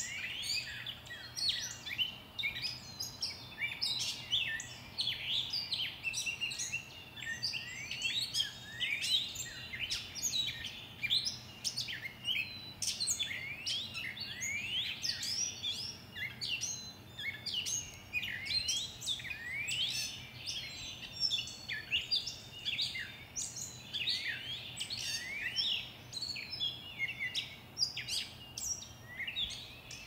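Dawn chorus: many songbirds singing at once, a dense, unbroken tangle of overlapping chirps and quick rising whistled sweeps.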